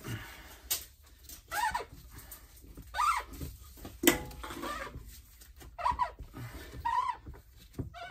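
Short, high-pitched animal calls, about five in a row, with no words. A sharp metal clink comes under a second in, and the loudest one about four seconds in, from hand tools on the oil-line fittings in the vise.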